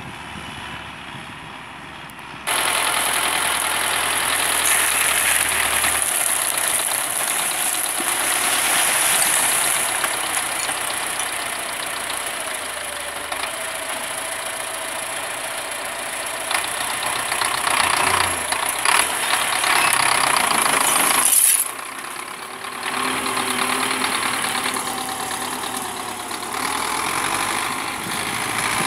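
MTZ-82 tractor's D-240 four-cylinder diesel engine running, quieter and distant for the first couple of seconds, then close and louder while its trailer is tipped.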